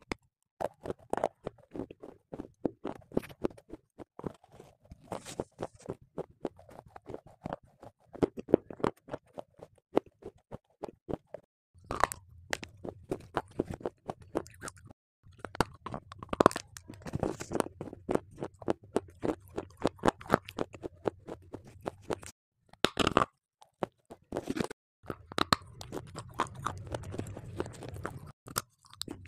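Crisp crunching bites into a hard, crumbly grey block, followed by chewing: runs of sharp crunches broken by a few short pauses. A low steady hum underlies the second half.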